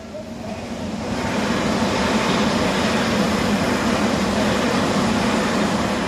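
Tobu 100 series Spacia electric express train passing over a level crossing. The rumble of its wheels on the rails swells about a second in, holds loud and steady, and begins to ease off near the end as the last car clears.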